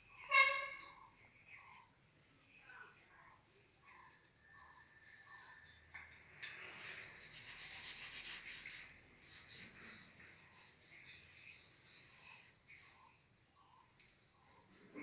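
A small pad rubbed over a cement-plaster surface, a scratchy rubbing that is loudest from about six and a half to nine seconds in. Behind it a faint chirp repeats about twice a second, and a short, loud pitched call sounds just after the start.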